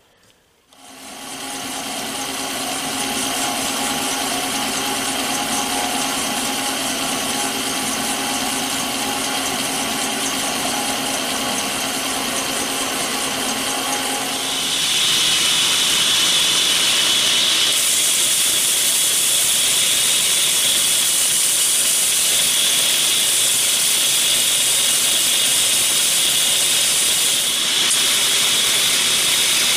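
A metal-cutting bandsaw starts about a second in and runs with a steady hum while cutting a tool-steel knife blank out along its scribed outline. About halfway through it gives way to a louder, steady hissing grind as the blank is held edge-on against a belt grinder's ceramic belt and ground to profile.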